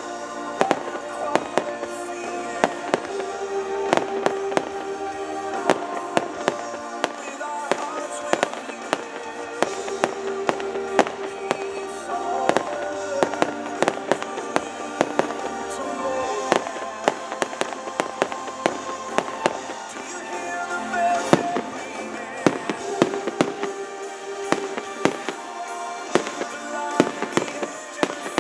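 Fireworks going off in a rapid, irregular string of sharp bangs and crackles, over music playing throughout.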